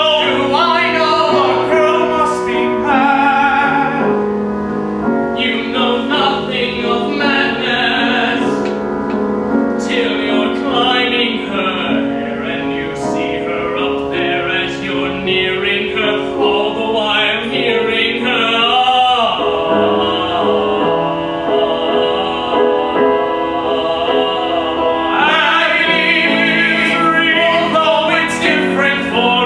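Male singing in a theatrical, operatic style with grand piano accompaniment, the voice held with a wavering vibrato.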